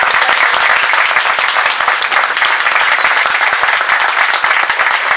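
A crowd applauding, many hands clapping at once in a steady, loud run.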